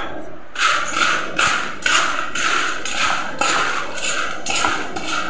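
Crisp, freshly fried jackfruit chips rustling and crunching against a steel plate as they are tossed and stirred to coat them with chili powder and salt. There are about two strokes a second, starting about half a second in.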